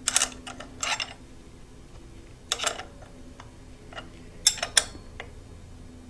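Wrench clinking against the cam sprocket bolt and the metal cam lock tool as the intake camshaft is turned by hand: about six sharp metal clinks, a few ringing briefly, the loudest near the start and about four and a half seconds in.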